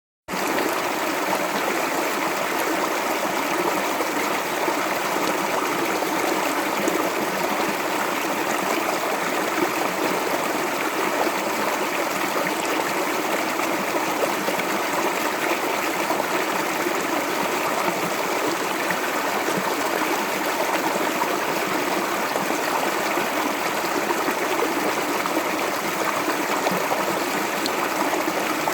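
Clear water flowing steadily in a shallow stream, an even rushing and trickling.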